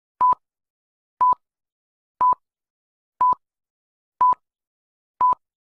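Six short electronic beeps of one steady pitch, evenly spaced about a second apart, each starting and ending with a click.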